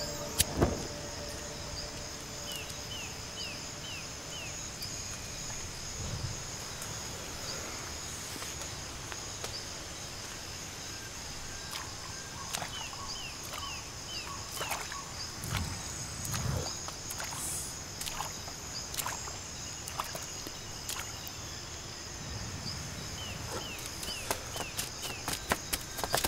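Outdoor natural ambience: a steady high insect drone, with a bird calling a short run of about five quick falling notes three times. A sharp click about half a second in as a cigarette lighter is struck, and a few soft thumps later on.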